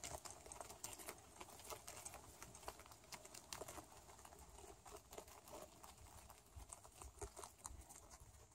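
Rabbits chewing a head of cabbage: a faint, irregular patter of small crisp crunching clicks as many mouths bite and chew the leaves at once.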